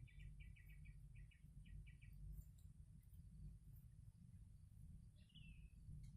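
A small bird calling faintly: a quick run of short, high chirps, about six a second, that dies away about two seconds in, then a single downward-sliding call near the end, over a steady low rumble.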